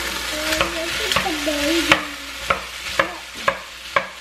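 Chicken and brown rice sizzling in a pan while a wooden spoon stirs them, knocking against the pan about twice a second.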